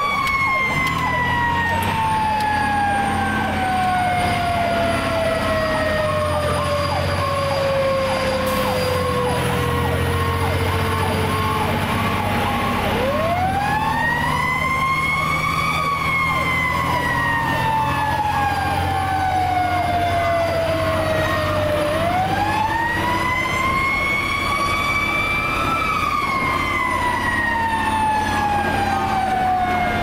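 Federal Q mechanical siren winding slowly down in pitch for about twelve seconds, then spun up twice: each time it rises quickly and coasts slowly back down. It is heard from inside the fire truck's cab over the steady rumble of the truck's engine.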